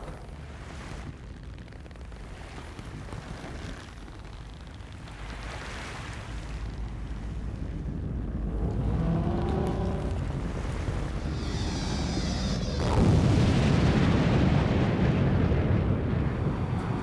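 Sound-effect rumble of a meteorite impact: a deep rumble that swells gradually, then breaks into a louder, deeper blast about thirteen seconds in.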